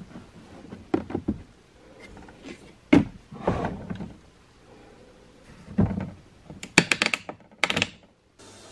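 Plastic toy washing machine being handled: knocks from its round door being shut and clunks of plastic parts, then a quick run of clicks as its dial is turned near the end.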